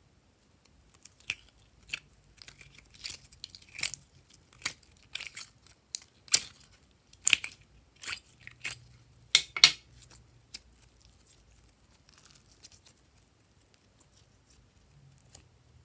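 Glossy slime being peeled out of a plastic tray and pulled by hand: a run of sharp, sticky pops and crackles, thickest through the first two-thirds and thinning out near the end.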